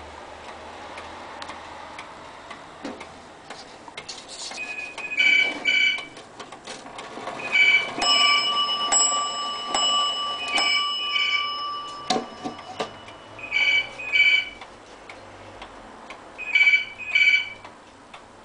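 Drop-dial pendulum wall clock ticking. Over it, a double tone repeats about every three seconds, and a struck, bell-like ring sounds and holds for about four seconds midway.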